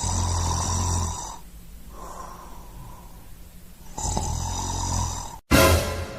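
A person snoring: two loud snores about four seconds apart, each followed by a quieter breath out. Near the end a sudden loud hit comes in and fades.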